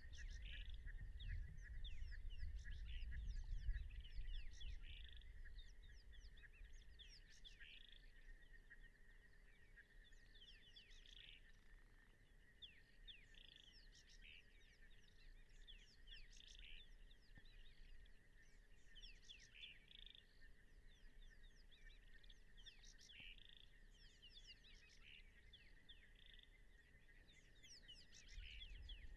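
Faint chorus of calling frogs or insects: a steady high drone with short chirping calls repeating every second or two. A low rumble runs through the first four seconds and returns near the end.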